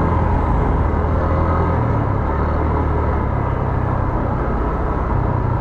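Steady low rumble of a car on the move, with busy street noise around it.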